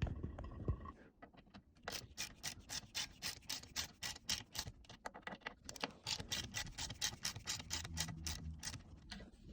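Torque wrench being set to 5 newton metres, a rapid run of even clicks at about four to five a second starting about two seconds in.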